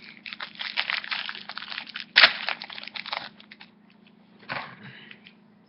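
Foil booster-pack wrapper crinkling and tearing, with cards rustling, a dense run of crackles for about three seconds, the sharpest rip about two seconds in, and a shorter rustle near the end.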